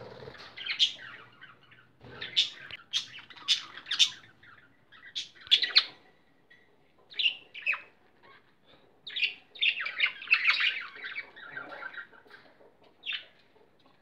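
Caged budgerigars, with lovebirds among them, giving short, shrill chirps and squawks in clusters, with a dense run of overlapping calls about nine to eleven and a half seconds in.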